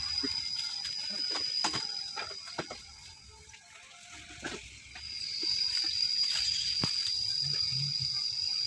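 Insects droning in one steady high tone that drops out about three and a half seconds in and returns a second and a half later, with scattered short knocks.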